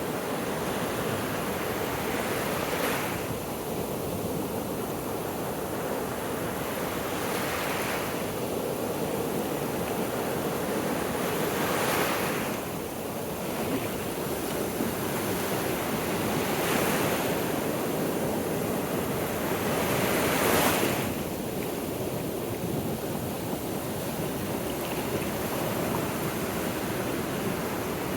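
Gulf of Mexico surf washing onto a sandy beach, a steady wash with a wave breaking every four to five seconds, the loudest about two-thirds of the way in. Some wind on the microphone.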